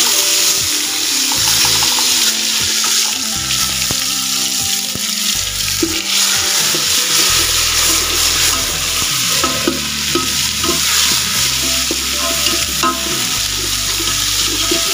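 Ginger-garlic paste frying in hot spiced oil in a pan while being stirred: a steady sizzling hiss throughout.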